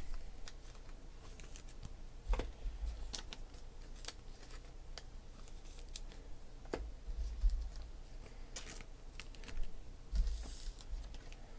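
Trading cards being handled and slid into plastic sleeves: scattered soft clicks and plastic rustles, with a few low thuds on the desk.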